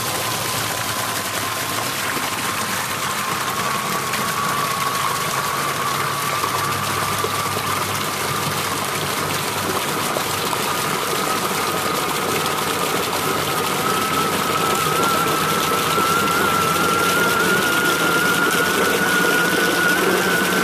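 3D-printed RC snow blower, its electric motor driving the impeller through a gearbox of printed ABS gears, running flat out in a tub of water and throwing a jet of water out of the chute: a steady whine that rises slowly in pitch, over the hiss and splash of the spray.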